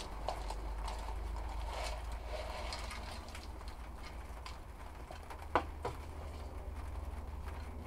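Small plastic pot being handled and tipped as a clump of rooted lavender cuttings in granular kanuma soil slides out onto a wooden board: light rustling and scattered soft clicks, with one sharper plastic click about five and a half seconds in.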